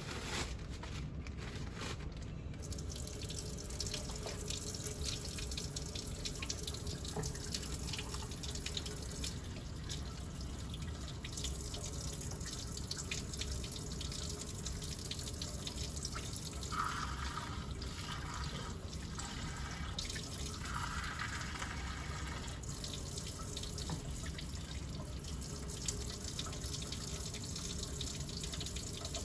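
Tap water running steadily into a white utility sink while dentures and a plastic denture cup are rinsed under the stream, the splashing briefly louder twice past the middle.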